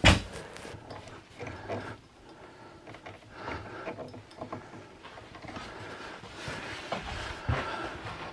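Handling noise around a clamped wooden glue-up: one sharp knock right at the start, then faint scattered taps, clicks and rubbing as hands move over the boards and bar clamps.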